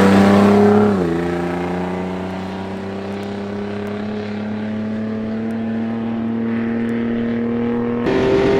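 Toyota 80 Series LandCruiser engine pulling away under load. Its pitch drops at a gear change about a second in, then climbs slowly as it accelerates in the next gear. Near the end the sound switches abruptly to a different, steadier engine note.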